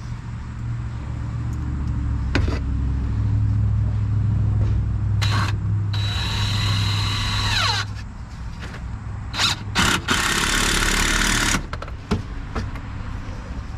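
An electric saw cutting wood twice: a high-pitched whine for about two seconds, its pitch falling as the motor winds down, then a second cut a couple of seconds later. A steady low drone runs underneath, with a few short knocks in between.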